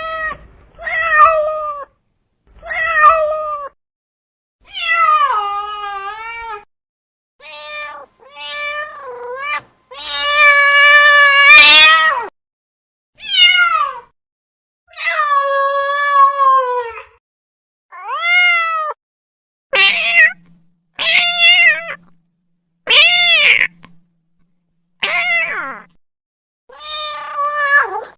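Domestic cat meowing over and over, about fifteen separate meows with the pitch rising and then falling in each. Some are short and some drawn out, the longest about two and a half seconds, with dead silence between them.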